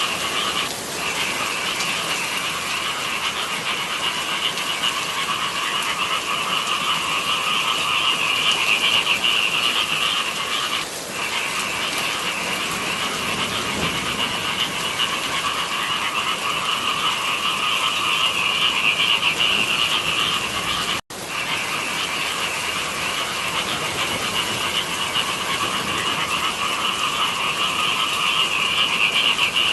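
Dense chorus of frogs calling in the rice fields, a continuous throbbing mass of calls at two pitches, one middling and one higher. The whole sound cuts out for an instant about two-thirds of the way through.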